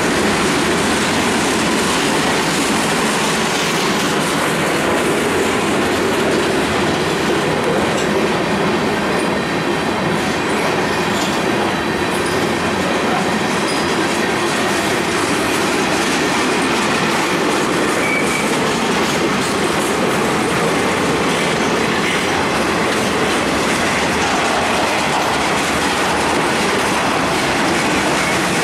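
Freight cars of a passing train, tank cars and boxcars, rolling by close at hand: a steady, unbroken noise of steel wheels running on the rails, with a few brief faint wheel squeals.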